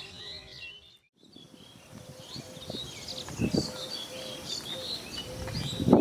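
Small birds chirping and twittering, with a brief drop to silence about a second in and a couple of low thumps past the middle.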